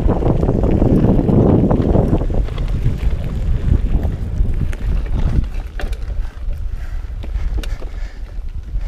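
Specialized Rockhopper Comp 29 hardtail mountain bike rolling over a dirt singletrack: tyre rumble and wind buffeting the microphone, with scattered clicks and rattles from the bike. It is loudest for the first half and eases off after about five seconds.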